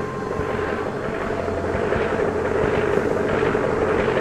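Radial engine of a single-engine propeller monoplane running steadily and growing slowly louder, heard on an old newsreel soundtrack.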